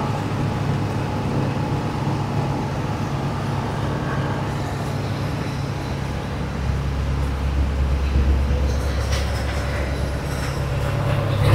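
An engine running steadily with a low rumble, which grows deeper and stronger about six and a half seconds in.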